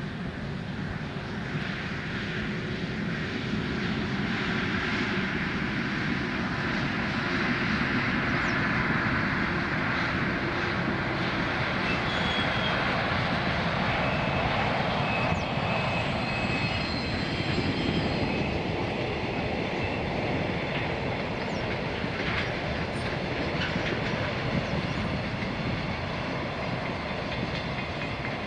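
A freight train of container flatcars carrying empty containers rolling steadily past, a continuous rumble of steel wheels on rail with a clickety-clack over the rail joints. A few faint high wheel squeals come in about midway.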